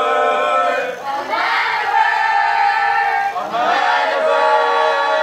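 A class of students voicing in unison, like a choir, drawing out long sustained notes in long phrases with short breaks about a second in and about three and a half seconds in.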